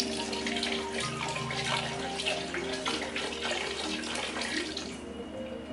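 Water poured from a metal cup into a large stainless stockpot of gumbo, a steady splashing pour that stops near the end.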